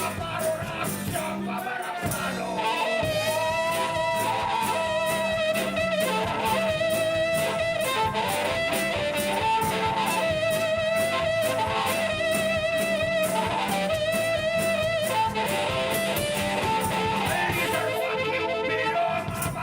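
Live band music: drums keep a steady beat under guitar while a lead instrument plays a wavering melody with vibrato.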